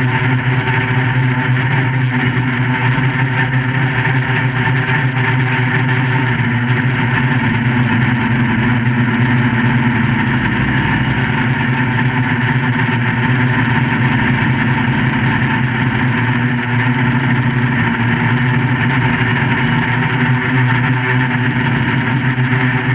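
QAV400 quadcopter's electric motors and propellers running in flight, a steady hum of several tones that holds nearly constant in pitch.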